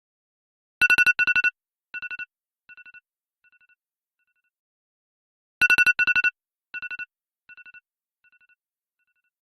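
iPhone "Radar" alarm tone: a loud cluster of quick high beeps followed by fainter and fainter echoes of it, the pattern repeating about every five seconds, twice here.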